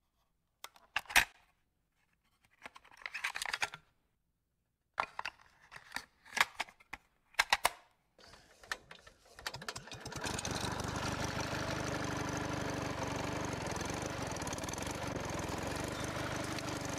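Random, unrelated sound effects: first a scatter of short clicks and brief noisy bursts, then from about ten seconds in a steady dense noise with a low hum running under it.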